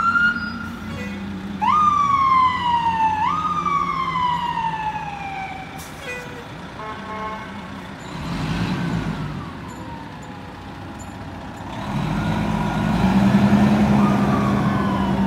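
Fire engine siren giving short whoops: a quick rise at the start, then two more close together about two and three seconds in, each winding slowly down. Later the fire engine's motor runs louder as it drives slowly past, with another brief siren wind-down near the end.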